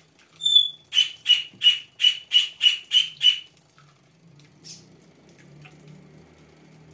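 High chirping squeaks: two short ones, then a quick even run of about eight, roughly three a second, that stops about three and a half seconds in.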